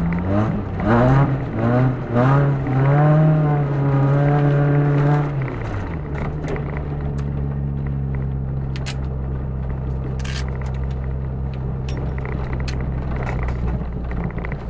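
Front-wheel-drive car's engine, heard from inside the cabin, revving up and down in steps as it drives on an ice track; about five seconds in the revs fall away to a steady low drone, with scattered ticks and cracks from the car.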